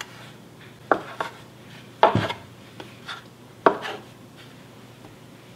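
Metal bench scraper chopping down through dough onto a bamboo cutting board: three sharp knocks, the second loudest, with a few lighter taps between.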